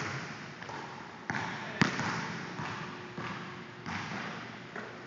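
A basketball thudding against a gym floor, with about six sharp bounces spread unevenly and a short echo after each. The loudest bounce comes a little under two seconds in.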